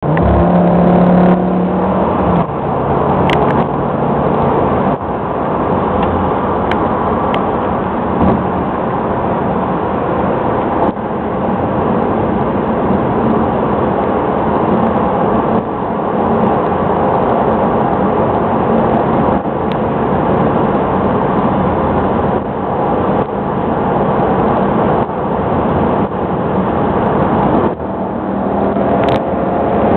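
Audi RS6 MTM Clubsport's twin-turbo V10 and wind and road noise heard inside the cabin during a sustained high-speed run, the car accelerating hard. The sound is a loud, steady rush with the engine note under it, dipping briefly a few times.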